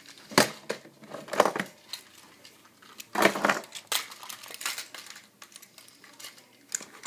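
A run of short scuffling, clattering noises: a handful of separate bursts, the strongest about half a second in, around a second and a half in, and about three seconds in.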